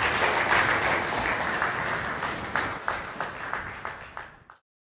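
Audience applausing at the end of a talk, thinning out to scattered single claps before cutting off suddenly near the end.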